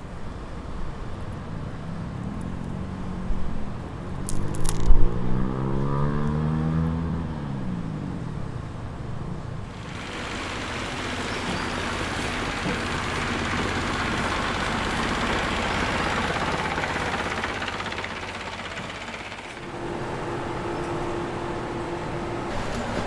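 A motor engine running, its pitch rising and then falling a few seconds in, followed by a steady hiss lasting about ten seconds.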